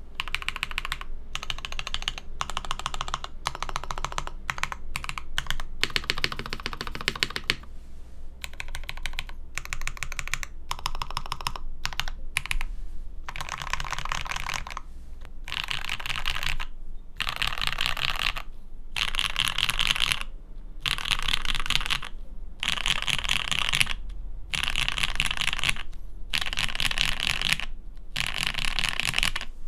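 Fast typing on a custom mechanical keyboard with lubed Gateron Black Ink V2 linear switches on a carbon fibre plate, in runs of rapid keystrokes broken by short pauses.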